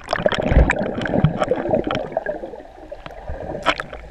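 Sea water churning around a submerged camera: muffled underwater gurgling and bubbling with many small clicks, loudest in the first two seconds and quieter after.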